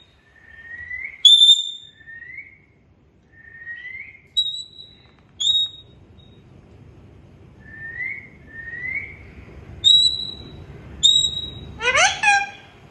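Pet parrot whistling: a string of short, rising whistled notes mixed with sharp, high chirps, spaced out with short gaps. Near the end comes one louder rising squawk.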